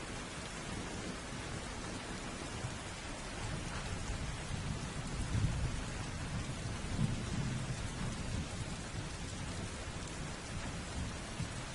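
Steady rain falling, with a low rumble of thunder that swells about a third of the way in, peaks twice and slowly dies away.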